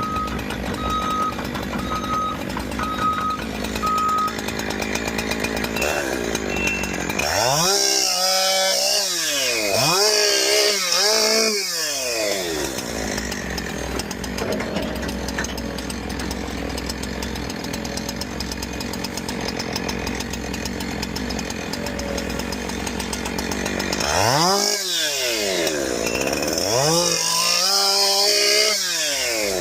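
Chainsaw running, revving up and down in two spells of several seconds each while cutting, with an engine running steadily between them. A short run of evenly spaced beeps sounds over the first few seconds.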